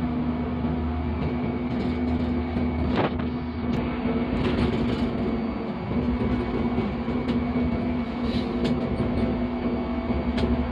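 GEU-40 diesel-electric locomotive under way, heard from inside its cab: a steady engine and rail drone with a constant hum, broken by a few sharp clicks, the clearest about three seconds in.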